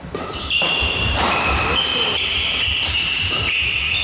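Badminton doubles rally: court shoes squeaking repeatedly on the hall floor, with short sharp strikes of rackets hitting the shuttlecock. The squeaking starts about half a second in and overlaps continuously after that.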